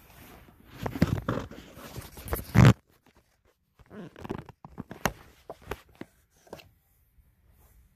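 Fabric rustling and scraping, loudest just before the three-second mark, then a few short wooden knocks and clicks as boards are lifted away from the side of a bed.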